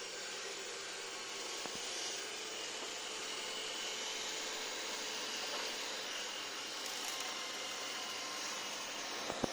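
Robot vacuum cleaner running with a steady whirring hiss from its fan and brushes. A couple of sharp clicks come near the end.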